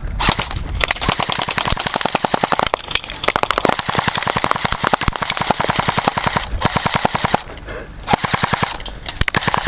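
Airsoft rifle firing on full auto: long strings of rapid, evenly spaced shots, broken by a couple of short pauses in the second half.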